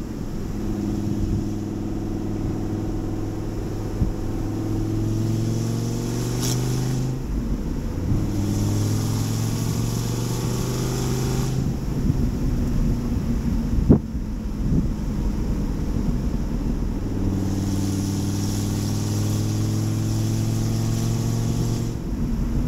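Dodge Viper's V10 engine pulling under throttle while cruising, its note climbing in pitch, breaking off about seven seconds in, and easing off past the midpoint. It pulls again later and eases off near the end, with a single sharp click about fourteen seconds in.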